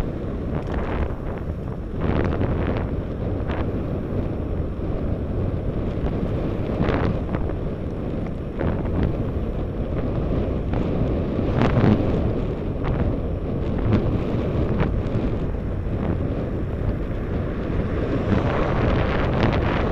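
Wind buffeting the microphone of a camera on a moving road bicycle: a steady low rumble with a few sharper gusts.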